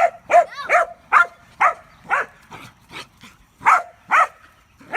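A dog barking over and over, about two barks a second, some louder and some fainter.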